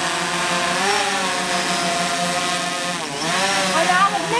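Small quadcopter drone flying overhead, its propellers giving a steady buzzing whine with many overtones. The pitch swells about a second in and dips sharply about three seconds in as the drone manoeuvres.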